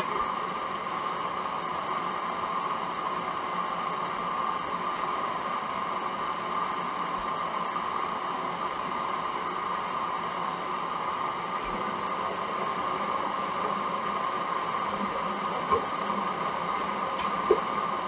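Hoover Dynamic 1400 front-loading washing machine taking in water, a steady hiss with the drum at rest, and a couple of faint clicks near the end.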